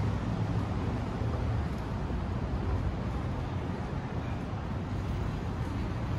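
Downtown street ambience: a steady low rumble of city traffic with no distinct events.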